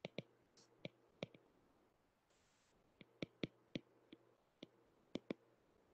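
Stylus tip tapping on a tablet's glass screen while handwriting: a dozen or so faint, sharp clicks at irregular intervals, with a gap of over a second in the middle.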